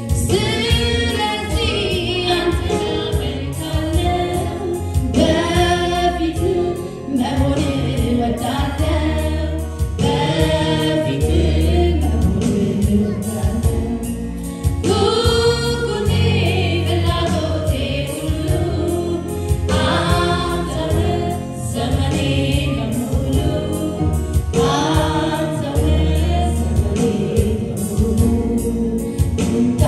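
Live gospel praise and worship music: a woman leads the singing with backing singers, over Yamaha electronic keyboard accompaniment with sustained bass notes.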